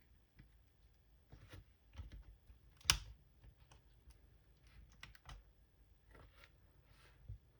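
Scattered, irregular clicks and taps on the butterfly keyboard of a 2015 MacBook 12-inch, with one sharper click about three seconds in.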